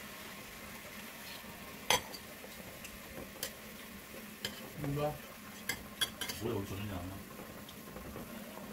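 Metal spatula and wooden spoon clicking and scraping against a frying pan and a ceramic plate as food is lifted out and pan juices are spooned over it, over a faint sizzle from the hot pan. A handful of sharp clicks, the loudest about two seconds in.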